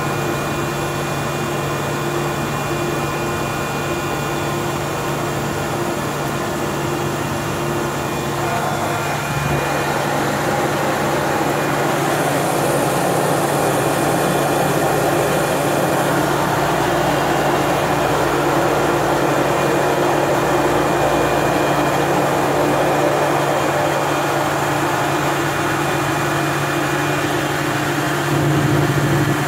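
GE H80 turboprop engine of a DHC-3 Turbine Otter floatplane running at low power while taxiing on the water, heard from inside the cockpit as a steady low hum under a hiss. The hiss swells around the middle, and the engine grows louder near the end.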